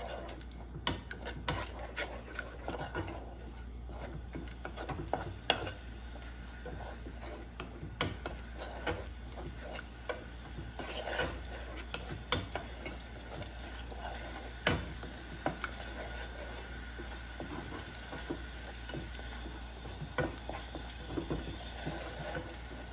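Wooden spatula stirring and scraping thick masala in a small saucepan, with irregular clicks and scrapes against the pan's sides and bottom.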